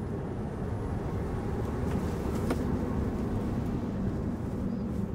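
Steady low road rumble and tyre noise heard inside a Tesla Model 3's cabin at speed on a rain-wet road, on Bridgestone Blizzak LM005 winter tyres, at the end of a full-power 0–100 km/h acceleration run.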